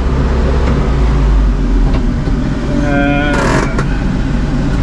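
Mahindra 85P tractor engine running steadily. Its deep drone eases about two seconds in, and a short hiss comes about three and a half seconds in.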